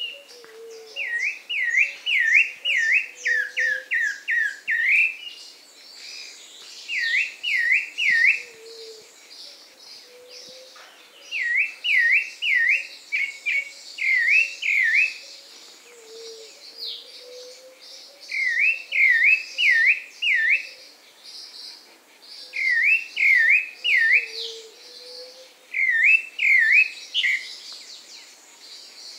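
Pale-breasted thrush singing: quick runs of three to eight clear, repeated whistled notes, each phrase broken by a pause of a second or two, over fainter high chirping from other birds or insects.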